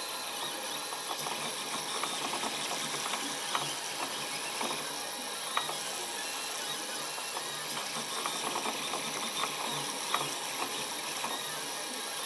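Protomaker Black Sprint FDM 3D printer running a print: the stepper motors hum steadily as the print head moves, with irregular light clicks and a constant hiss.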